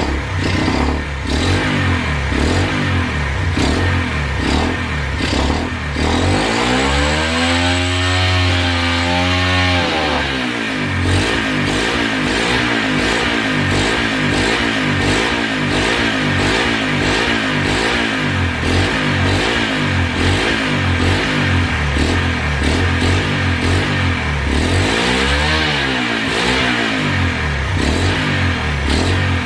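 Turbocharged Loncin pit bike's single-cylinder four-stroke engine running on its stand through a muffled exhaust. It is revved up and back down twice, once around seven seconds in and again near the end, with a faint turbo whistle over the engine note.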